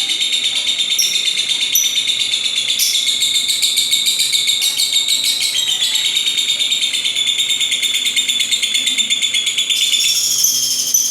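Lovebird chattering nonstop: a loud, rapid, high-pitched stream of chirps and buzzy notes.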